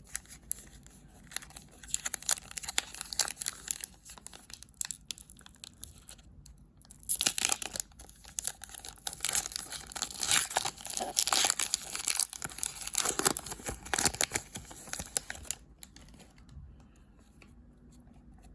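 A foil trading-card pack wrapper being torn open and crinkled, in two stretches of crackling. The longer, louder stretch runs from about seven to fifteen seconds in.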